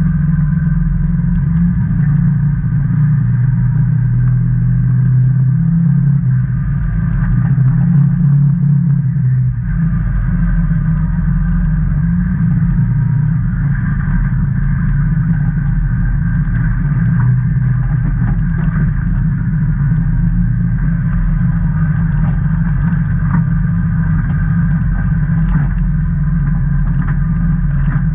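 Can-Am Maverick Trail 800 side-by-side's Rotax V-twin engine running steadily under way on a gravel trail: a continuous low drone, with small scattered rattles and clicks from the ride.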